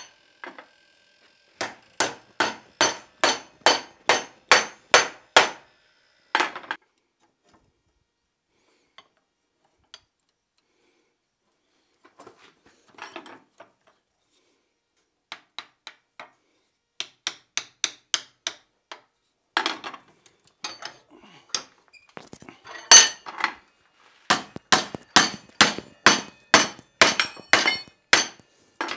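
Hand hammer striking red-hot iron clamped in a blacksmith's vise, bending up the ears of a forged door-knocker back plate. The sharp metal-on-metal blows come in runs of about three a second, with a pause of several seconds between the first run and a later, denser run near the end.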